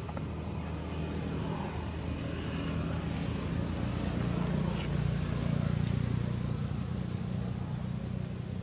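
Low, steady rumble of a motor vehicle, growing louder in the middle and easing off again, as if passing by.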